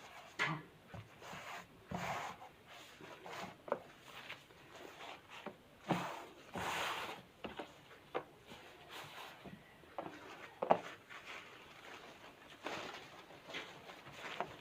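Rustling and handling of a washing-machine cover sheet as it is folded and stuck down, with scattered light knocks and taps and one longer rustle about six seconds in.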